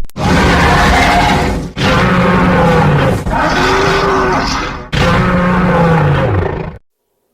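Horror monster roar sound effect: four loud growling roars in a row, each about a second and a half long with its pitch dropping at the end, cutting off suddenly near the end.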